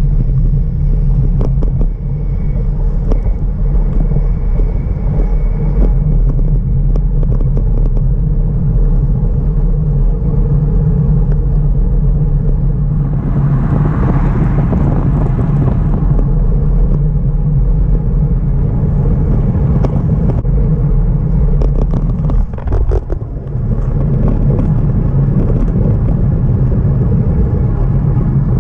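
Steady low rumble of wind buffeting the microphone of a camera on a moving road bicycle, mixed with road noise. About halfway through, a passing vehicle swells and fades over a few seconds.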